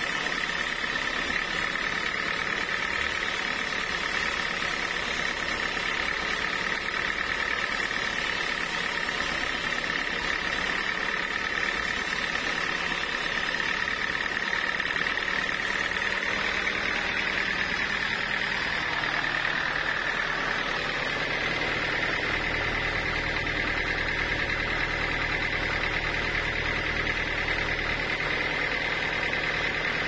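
Band sawmill cutting through a large block of teak: a steady high whine from the blade and machine over the hiss of the cut. A deeper hum joins about three-quarters of the way through.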